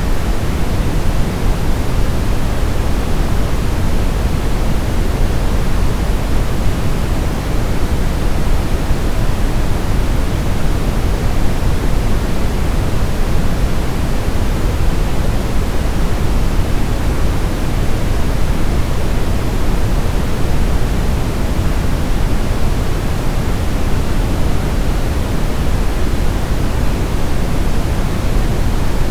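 Steady, unchanging generated noise used as a baby sleep sound: an even hiss weighted toward the low end, closer to pink noise than flat white noise.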